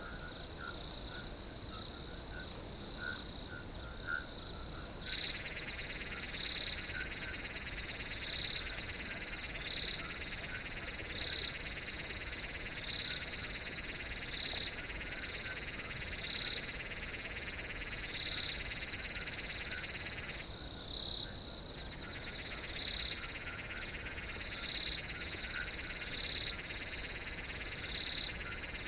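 Field chorus of crickets: a steady high trill with short chirps repeating about every second and a half. A denser, lower buzzing chorus comes in about five seconds in and drops out briefly around twenty seconds in.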